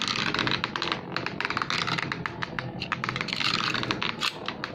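Two Mercury Anubis 85XF Metal Fight Beyblades spinning in a stadium, their metal wheels clashing in a fast, irregular run of clicks over a steady hiss.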